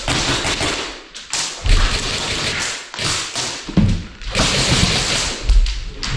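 Footsteps with a few heavy thuds, under loud rustling of clothing and gear close to the microphone as a player moves.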